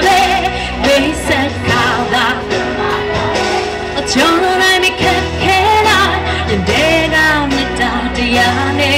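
A woman singing a pop song live into a microphone over loud amplified backing music with a steady bass line.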